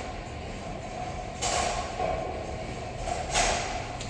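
Bowling alley din: a steady low rumble, with two brief bright crashes about a second and a half in and again near the end.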